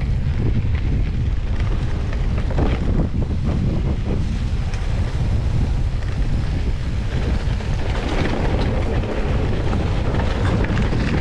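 Wind buffeting the microphone of a mountain bike's ride camera, a steady low rumble, with scattered knocks and rattles from the bike over rough ground that come more often near the end.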